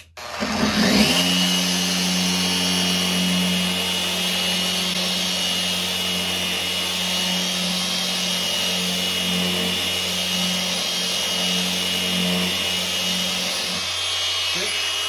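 Bosch GET75-6N random orbital sander, in regular random orbit mode with a 6-inch 150-grit disc, starting up and rising to speed over about a second, then running steadily as it sands a freshly planed epoxy-and-wood board. Near the end it is switched off and begins to wind down.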